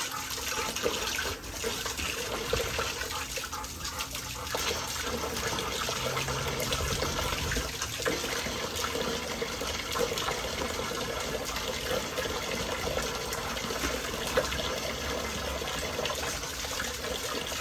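Water running from a garden hose into a dog's water bowl, a steady rush of water.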